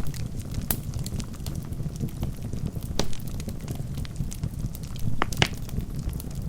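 Wood fire burning in a fireplace: a steady low rumble of flames with sharp crackles and pops from the logs, the loudest cluster about five seconds in.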